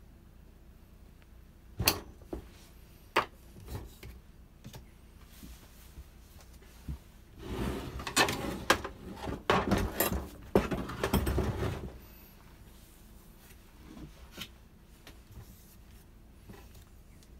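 Small metal parts and hand tools clicking and clattering as a washer and C-clip are refitted on the clutch end of a Makita top-handle chainsaw. There are sharp single clicks about two and three seconds in, then a busier stretch of rattling and knocking in the middle.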